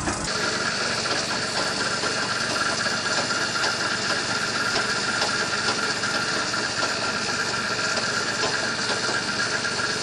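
Powered kite-line winch running steadily: a continuous mechanical whir of motor and gearing with a steady high tone, starting abruptly just after the opening.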